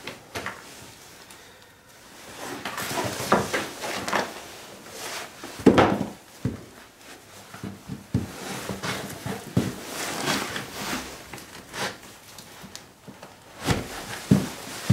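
Stretch-on ice cleats being fitted to a shoe: irregular rustling, scraping and clicking from handling, with a heavier knock about six seconds in and two more near the end.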